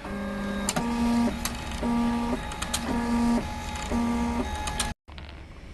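3D printer's stepper motors whining in steady tones that change pitch every half second or so as the print head moves, with a few sharp clicks. The sound cuts off about five seconds in, leaving a quieter room hum.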